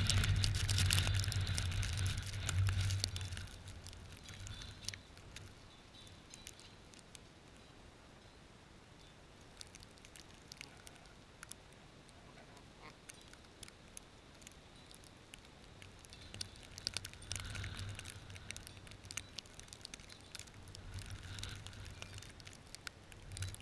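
Wind gusting on the microphone in a snowstorm, with scattered light ticks and crackles. It is strongest in the first few seconds, dies down, and picks up again in gusts near the end.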